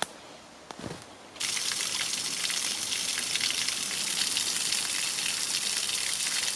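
Small woodland stream flowing over stones: a steady rushing of water that starts abruptly about a second and a half in. Before it, a couple of faint clicks.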